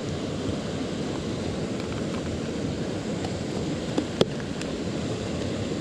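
Wind buffeting a GoPro's microphone: a steady rushing noise, with two short clicks about four seconds in.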